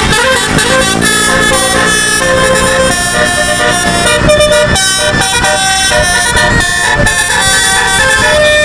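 A bus's telolet musical air horn sounding a tune: a run of held horn notes, each stepping to a new pitch every half second to a second.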